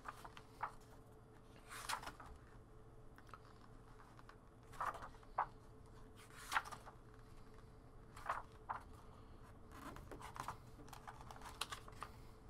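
Pages of a paper instruction booklet being turned by hand: a string of short, faint paper rustles and flicks.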